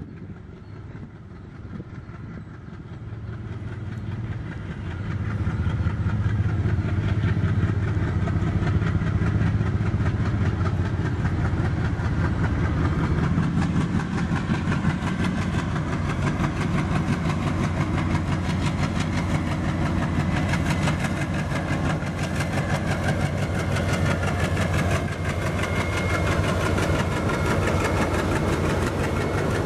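Several ALCO WDG-3A diesel locomotives working in multiple at the head of a freight train: their engine drone grows louder over the first five or six seconds as they approach, then stays loud and steady as they pass close by with wheel and rail clatter.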